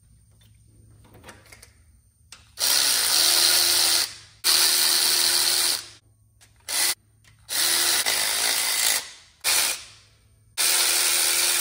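Power tool running 10 mm water pump bolts into a Chevy 5.3L V8, its motor spinning up in runs of about a second and a half, with two short blips between. The last run cuts off at the end.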